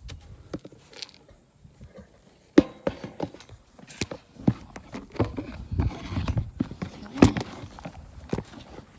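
Irregular knocks, clatters and thumps of a horse being given its feed, starting about two and a half seconds in.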